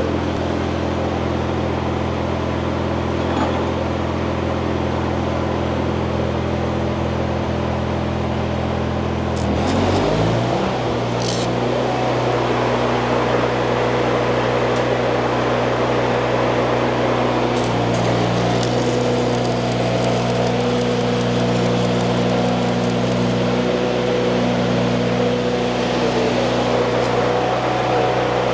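Stick welding: the welder's steady machine hum under the hiss and crackle of the arc. About ten seconds in, the hum shifts pitch and the crackle grows.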